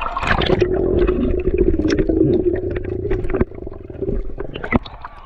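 Muffled underwater sound from a GoPro dunked in a waterfall pool: a dense low rumble with many small clicks and pops. It drops noticeably in level about three and a half seconds in, and there is a sharp click near the end.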